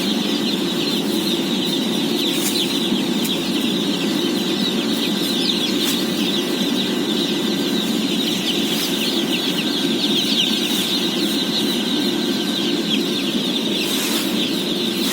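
A large flock of day-old chicks peeping continuously, a dense mass of short high chirps, over a steady low rumble and a few sharp clicks.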